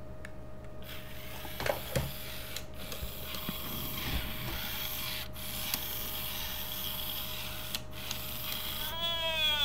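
A steady hiss with a short break about every two and a half seconds, with a couple of knocks from the drawer about two seconds in. Near the end a malfunctioning original Furby's electronic voice starts up in a warbling call that falls in pitch.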